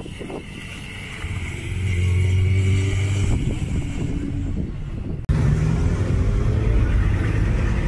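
Suzuki GSX-R1000 K3 inline-four motorcycle engine running, getting louder about a second and a half in. After a sudden cut about five seconds in, the same engine runs steadily at low revs as the bike rolls slowly.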